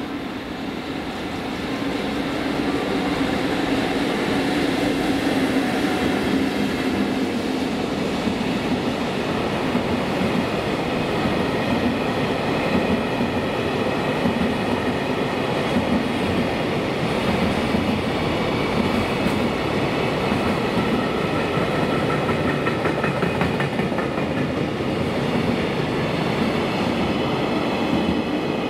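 Container freight train hauled by an EF65 electric locomotive running past, with a steady rolling noise of steel wheels on the rails. It grows louder about two seconds in and then holds steady.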